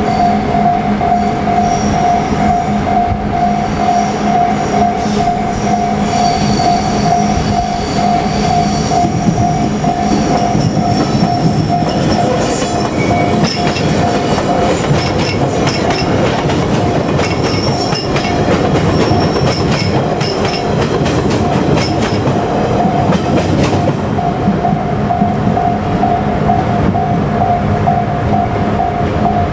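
Japanese level-crossing warning bell ringing in a steady pulsing tone while a JR Kyushu 817 series electric train passes, its wheels squealing in high-pitched tones. The train's running noise swells in the middle and partly drowns the bell, which rings on clearly after the train has gone by.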